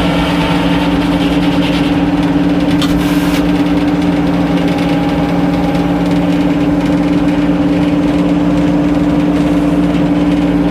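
Sawmill machinery running at a steady speed, an even engine-like hum with no change in pitch.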